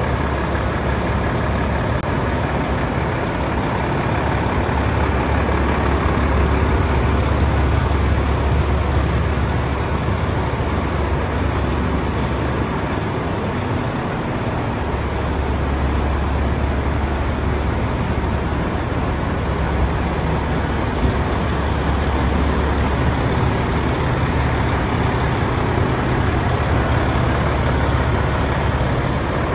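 Volvo FH500 tractor unit's 13-litre straight-six diesel idling steadily, a deep even hum that dips briefly about halfway through.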